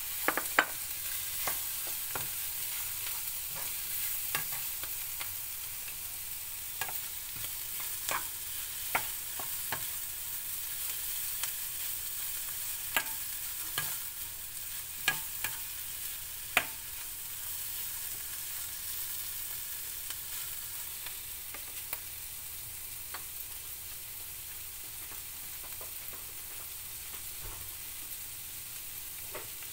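Clams, pork and vegetables sizzling in a frying pan, with a spatula scraping and clicking against the pan as they are stirred. Most of the clicks come in the first half, and the steady sizzle continues after them.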